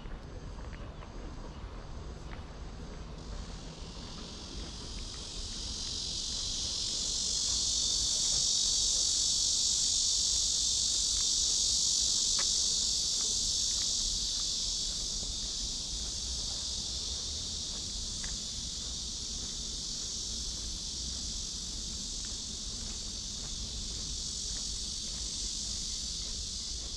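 A chorus of cicadas buzzing in a steady high drone that swells a few seconds in, is loudest about a third of the way through, then settles and holds.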